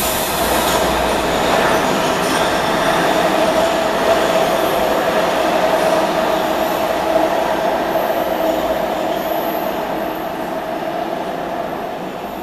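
MARTA rapid-transit train pulling out of an underground station and running off into the tunnel: a steady rail rumble and hum that slowly fades as the train recedes, with faint high wheel squeals in the middle.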